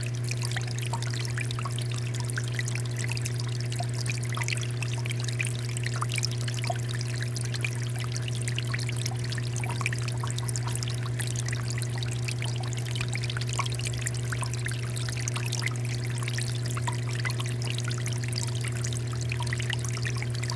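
Small indoor tabletop water fountain, water trickling and splashing continuously, with a steady low hum underneath, typical of the fountain's small electric pump.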